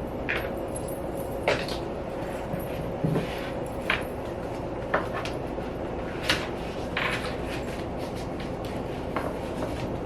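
Packaging and accessories being handled during an unboxing: a scattering of light knocks and clicks, about one a second, over a faint steady tone.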